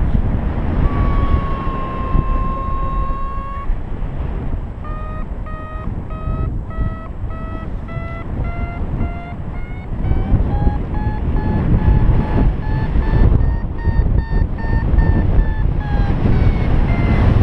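Paragliding variometer beeping over wind rushing on the microphone: a held tone, then a quick run of short beeps that slowly rises in pitch, then another held tone that dips near the end. The beeping and its pitch track the glider's climb in lift.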